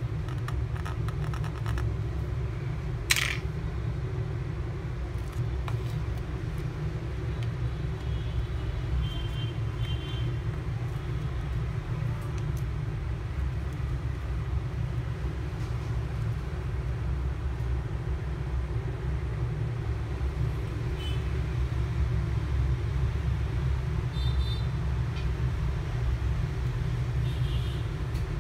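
Steady low background rumble, with one sharp click about three seconds in and a few faint light clicks later as the phone's small parts are handled with tweezers.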